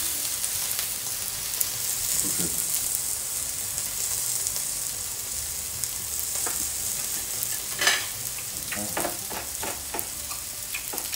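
Lamb chops sizzling on an electric grill plate: a steady frying hiss. From about two-thirds of the way in, a few short, louder mouth sounds from someone eating.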